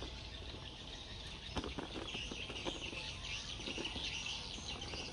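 Birds chirping in the background, a steady high twittering, with a few faint rustles of a woven plastic sack pressed by hand.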